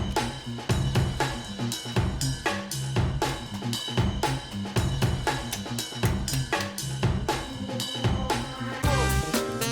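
Background music with a steady drum-kit beat, about two hits a second, over a bass line, turning busier near the end.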